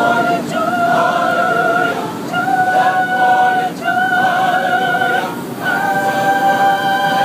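Choir singing a cappella: a slow line of long held notes, each a second or more, with short breaks between.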